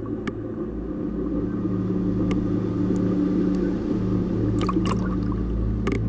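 Idling boat motor: a steady low hum under wave wash, with a few sharp clicks of water about five seconds in.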